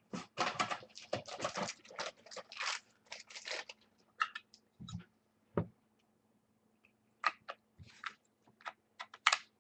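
Trading cards and their packaging being handled: a dense run of crinkling and scraping for the first few seconds, then scattered single clicks and taps.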